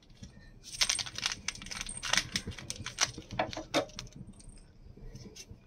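Kitchen items being handled off to the side: a quick run of light clicks and rattles starting about a second in and lasting about three seconds, then fading to a few faint ticks.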